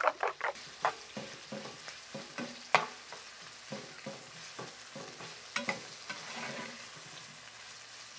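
Pieces of dried beef frying in oil in a clay cazuela, sizzling, while a plastic spoon stirs and scrapes them against the pot with irregular knocks, one sharper knock about three seconds in. At the very start, a few quick even strokes of a fork beating eggs in a clay bowl.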